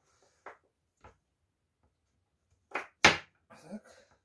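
A few short knocks and taps of items being handled on a kitchen counter. The sharpest knock comes about three seconds in, among several quick taps.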